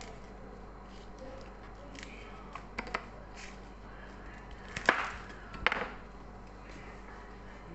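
Crisp baby kailan (Chinese kale) stems snapped and leaves pulled off by hand: a few light clicks, then two loud sharp snaps a little under a second apart, past the middle.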